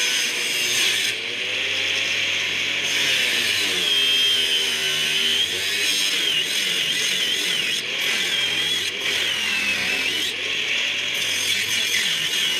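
Angle grinder cutting through steel profile with its disc, running steadily under load, its whine wavering up and down in pitch as the cut goes.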